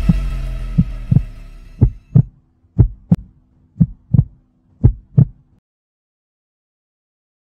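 Heartbeat sound effect: four pairs of low lub-dub thumps about one pair a second over a faint hum, coming in as a music drone fades out. It stops about five and a half seconds in.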